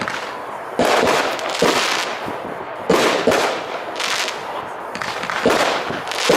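Red Apple UV Roman candles firing: a sharp pop about every second or so as each star is shot out, with a hiss and crackle trailing after each shot.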